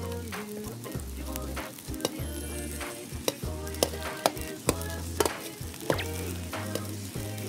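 Eggs frying and sizzling in an oiled wok while a metal ladle stirs and scrapes them, with repeated sharp clicks of the ladle against the wok, the loudest a little past the middle. Light background music plays underneath.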